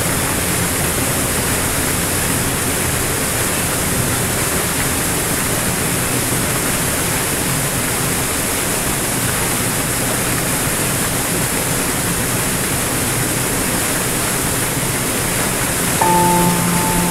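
Small waterfall pouring onto rocks into a churning pool: a loud, steady rush of falling water. About a second before the end, soft piano notes come in over it.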